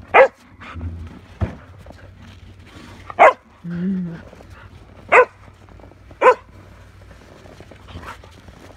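Shetland sheepdog barking sharply, four loud single barks a second or two apart, with a short low pitched sound between them and a single knock about a second and a half in.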